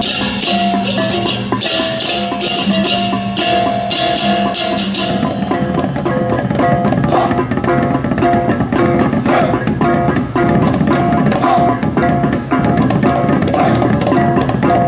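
Balinese baleganjur gamelan playing: crashing ceng-ceng hand cymbals in a fast even rhythm over pitched gongs and kendang drums. The cymbal crashes drop out about five seconds in, leaving the drums and gongs playing on.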